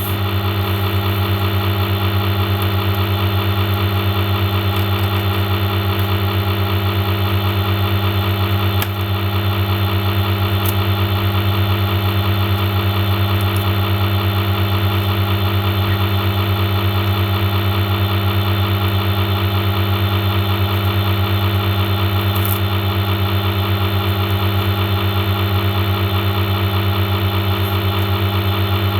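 A loud, steady, low-pitched machine hum that does not change, dipping briefly about nine seconds in.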